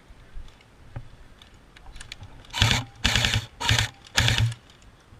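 Airsoft rifle firing four short full-auto bursts close by, starting about halfway in, each a rapid rattle of shots lasting about a third of a second.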